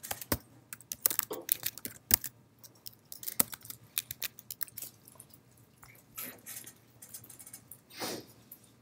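Computer keyboard keys typed in irregular separate clicks, quick at first, then a few spaced keystrokes. A brief soft rush of noise comes near the end.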